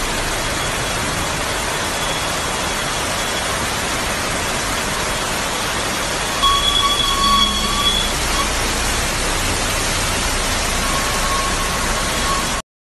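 Heavy rain and floodwater rushing down a street, a steady dense hiss of water. About six and a half seconds in there is a brief higher tone lasting about a second and a half, and the sound cuts off suddenly near the end.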